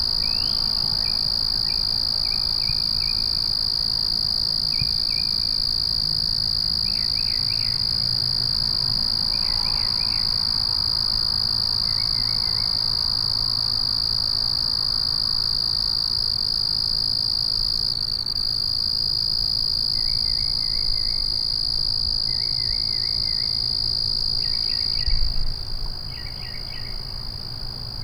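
Night chorus of crickets: a dense, steady high-pitched trill. Every few seconds it is broken by short bursts of lower-pitched chirping from other callers. About 25 seconds in there is a low bump, and the chorus is slightly quieter after it.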